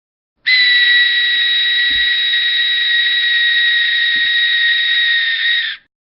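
An ancient Mexican-style resonator wind whistle blown in one long, steady, breathy blast of about five seconds: a high tone with a fainter tone an octave above over airy hiss, sagging slightly in pitch just before it cuts off.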